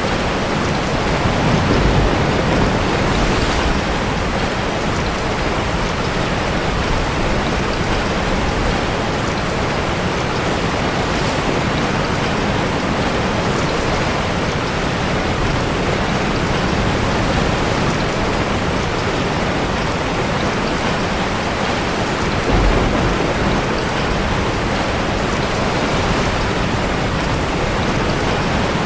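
Steady heavy rain mixed with big ocean waves surging inside a sea cave, a dense unbroken rush. Two deeper, louder swells rise up, one about two seconds in and one near 23 seconds.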